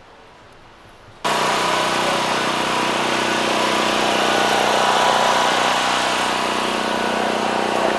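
Faint background, then about a second in a loud engine starts abruptly and runs steadily with a constant hum.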